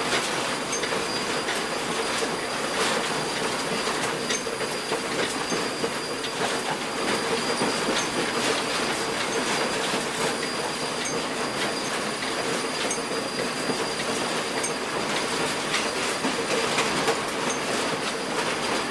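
Train rolling along the rails: a steady running noise with many faint wheel clicks and a steady whine from the wheels.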